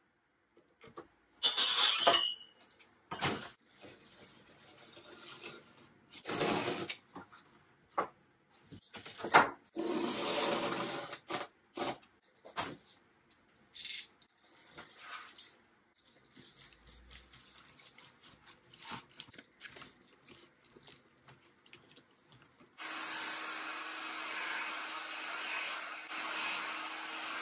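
Workshop handling sounds: intermittent rubbing, scraping and a few sharp knocks as veneer sheets and a glued panel are handled. About 23 seconds in, a handheld heat gun switches on and runs with a steady blowing hiss and a low hum, drying the glue under the veneer.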